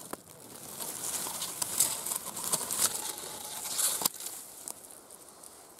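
Dry grass and fallen leaves rustling and crackling as a hand works through them at a mushroom, with one sharp snap about four seconds in; the rustling dies down near the end.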